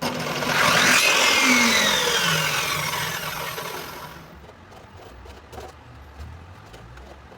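A motor that starts suddenly, rises in pitch for about a second, then falls in pitch and fades out over the next three seconds.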